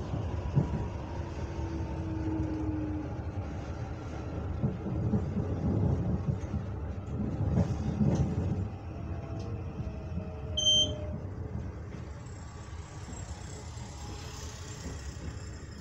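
CAF series 7000 electric train heard from inside its driver's cab while running: a steady low rumble with wheel-on-rail clatter, heaviest in the middle, and a faint slowly falling whine. A short electronic beep sounds about two-thirds of the way through.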